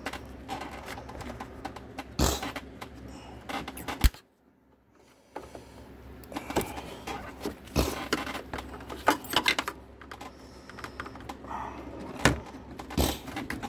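Irregular clicks, taps and small rattles of a screwdriver and hands working the plastic retaining clips and radiator mounts, including a sharp click about four seconds in followed by about a second of near silence.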